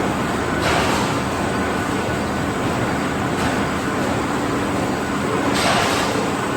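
PP plastic bag cold-cut, hot-seal cutting machine running steadily, with a brief hissing surge about half a second in and again near the end.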